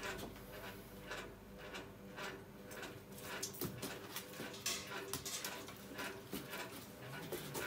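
Soft, irregular scuffs and knocks of hooves shifting on a rubber stall mat as a newborn foal and its mare move about, over a low steady hum.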